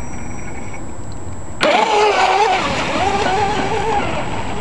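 RC speedboat's motor suddenly spinning up about a second and a half in and running at speed as the boat takes off, with a wavering whine and water spray. The whine eases off near the end.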